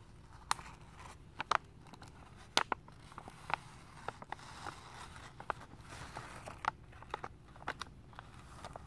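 Clear plastic sheeting wrapped around a flooring roll crinkling under fingertips as it is pinched and pulled: irregular sharp crackles, several a second at times, some louder than others.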